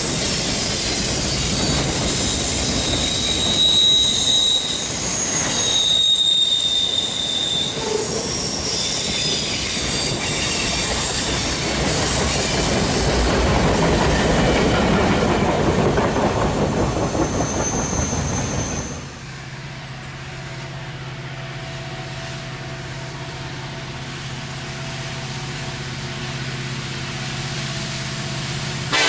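Freight train of loaded container flatcars rolling past, with high-pitched wheel squeals in the first few seconds. About nineteen seconds in, a sudden cut to the steady low hum of a distant approaching diesel locomotive, growing slowly louder.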